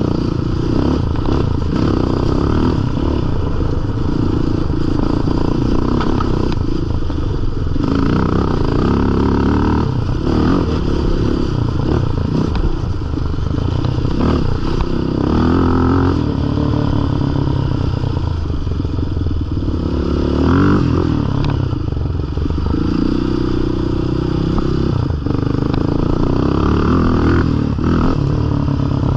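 Yamaha Raptor sport ATV's single-cylinder four-stroke engine running under way, its revs rising and falling with the throttle, over a rough rattling noise.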